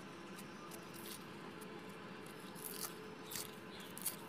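A knife peeling and scraping the dry, papery skin off a red onion: faint, with a few short crackles and clicks, the sharpest near the end, over a low steady hum.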